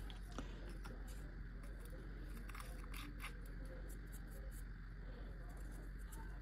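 Faint, scattered light clicks and rustles of a small jar of acrylic nail powder being handled and shaken to mix the blues, over a steady low hum.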